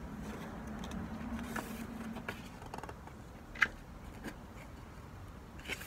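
Low outdoor background rumble, with a faint steady hum in the first two seconds and a few small clicks, one sharper about three and a half seconds in.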